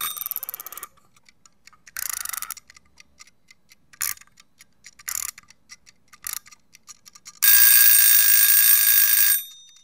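Clock ticking, broken by several short bursts of an alarm clock's ringing, then the alarm clock ringing for about two seconds near the end before it cuts off.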